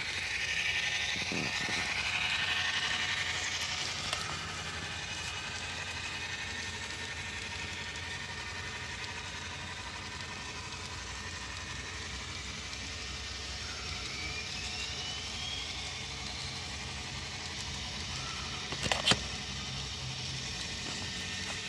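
Model locomotive's DCC sound decoder playing an engine sound through its small onboard speaker: a steady running hum with a rising whine about two-thirds of the way through and a sharp click near the end.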